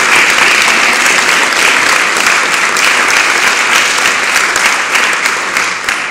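Audience applauding: steady, dense clapping that begins to die down near the end.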